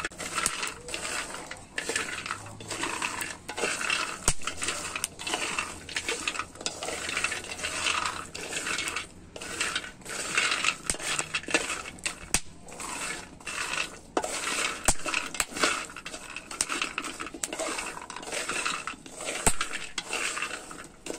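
Cacao beans rattling and scraping against a pan as they are stirred with a wooden spatula while they toast: a constant patter of small clicks and scrapes, with now and then a sharper knock.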